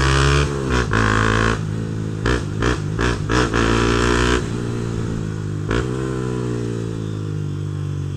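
Honda CB Twister motorcycle's single-cylinder engine running through a Protork Mine 3 aftermarket sport exhaust while riding. About two to four seconds in the throttle is chopped and reopened several times in quick succession, and the engine pitch dips and rises. Otherwise it runs steadily, with one more short throttle change near the middle.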